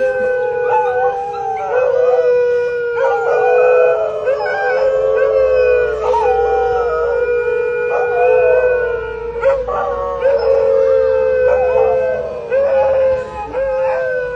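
Several husky-type dogs howling together: long held howls overlapping with shorter howls that rise and fall in pitch.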